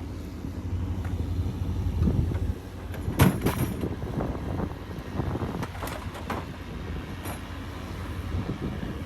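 Ego 56-volt battery lawn mower cutting thick, tall grass, with wind buffeting the microphone and a few sharp knocks, the loudest about three seconds in.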